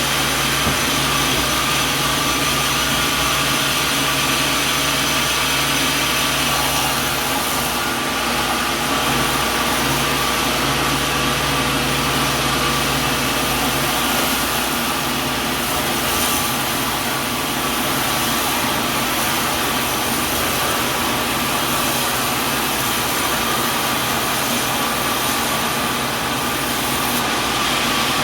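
Sawmill machinery running steadily, a constant loud mechanical drone with a steady hum.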